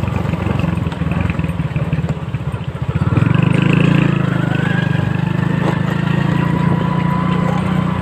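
Small motorcycle engine running while riding, with an even low pulsing; it gets louder about three seconds in as the throttle opens, with a faint rising whine.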